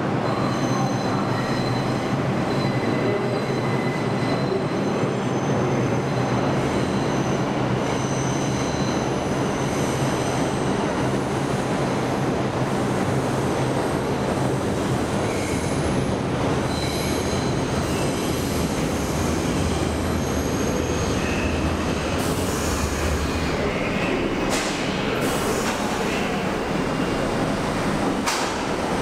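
New York City Subway 6 train running through the station on the curved local track without stopping. Its wheels squeal in thin, high, on-and-off whines over a steady rumble of the cars.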